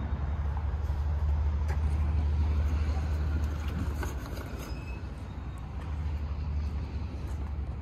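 Low rumble of a road vehicle passing by, swelling over the first few seconds and fading away about halfway through, with a few faint clicks.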